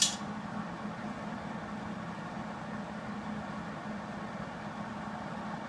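A metal locking clamp snaps into place with one sharp click at the start, then a steady low mechanical hum carries on underneath.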